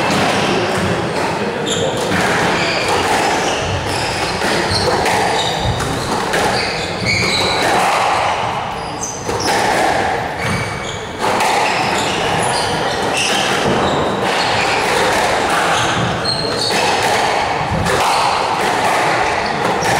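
Squash rally in an echoing hall: the ball smacks off rackets and the court walls again and again, with short shoe squeaks on the court floor over a steady murmur of spectators.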